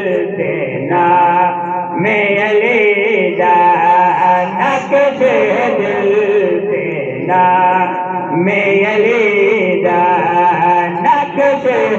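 A male zakir chanting a Saraiki qasida in praise of Imam Ali, in long, melodic, held vocal lines without pause.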